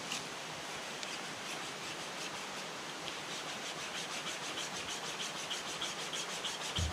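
Braided steel wire survival saw being worked back and forth across a dry log, making short rasping strokes about five a second that grow stronger about halfway through. The wire bites only weakly into the wood.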